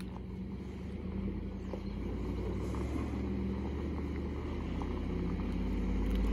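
Ford F-150 pickup driving slowly toward the listener on a dirt road, its engine running low and steady and growing louder as it approaches.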